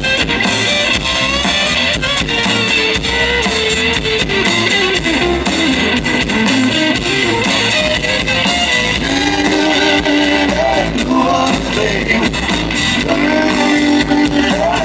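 Live rock band playing: electric guitars strummed and picked over a drum kit and bass.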